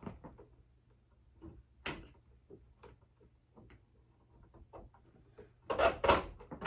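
Scattered light clicks and taps as animatronic prop parts are handled and slipped into the mechanism's fittings, with a louder cluster of knocks near the end.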